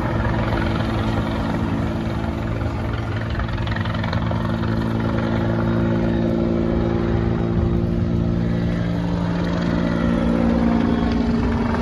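Military helicopter flying low overhead: a steady hum of rotor and turbine. Its pitch drops slightly near the end as it moves past.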